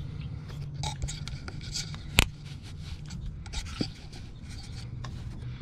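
Hands working plastic hoses and connectors on a Nissan Frontier's EVAP canister: rubbing and scraping with scattered small clicks, and one sharp click about two seconds in. A steady low hum runs underneath.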